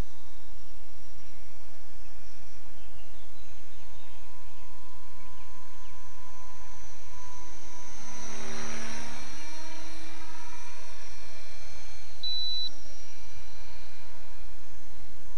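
Small engine of a radio-controlled model aircraft droning as it flies over, loudest as it passes close about eight to nine seconds in.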